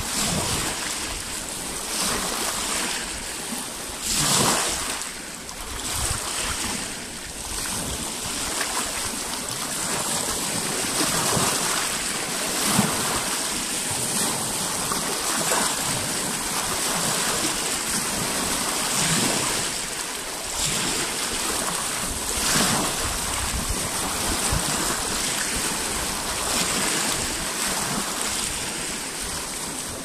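Small lake waves washing and splashing against shoreline rocks. There is a steady wash of water, with a brief louder splash every few seconds as a wave breaks.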